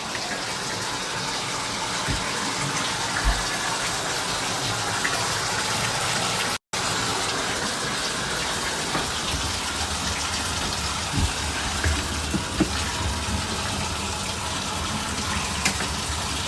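Faucet running water steadily, as a flow test of the newly installed drain lines. A momentary dropout comes about six and a half seconds in.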